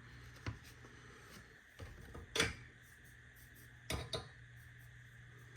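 A few light knocks and clatters of the turntable's circuit board being handled and turned over on the bench, the loudest about two and a half seconds in and a close pair about four seconds in, over a faint steady hum.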